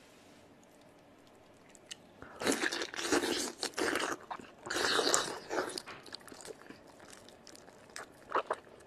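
Close-miked biting and chewing of a braised pig's trotter. After about two quiet seconds come two loud spells of biting and tearing at the skin and meat, followed by scattered smaller chewing and mouth sounds.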